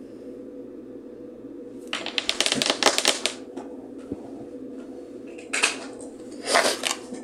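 A deck of tarot cards being shuffled: a rapid run of crisp card clicks about two seconds in, lasting just over a second, followed by two short rustles of cards being handled.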